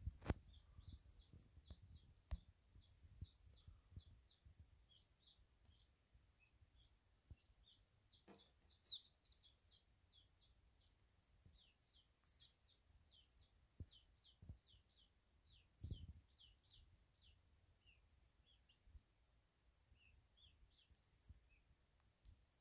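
Baby quail chicks peeping: short, high, falling peeps, about three a second, thinning out near the end. A few faint knocks and a low thump come in between.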